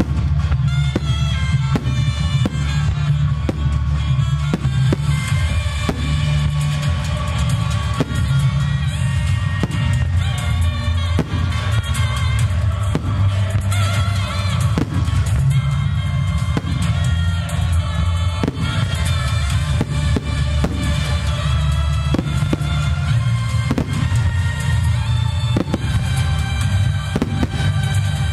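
Music playing alongside a starmine aerial fireworks display, with fireworks shells bursting over it again and again.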